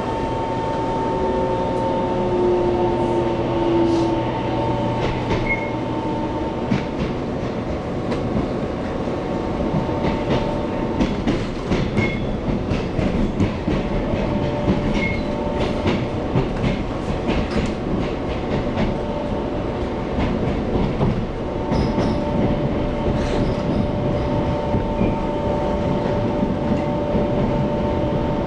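Running sound of an EMU700 electric commuter train heard from inside the carriage: the traction motors whine, rising in pitch over the first few seconds, over a steady rumble of wheels on rail with scattered clacks from rail joints.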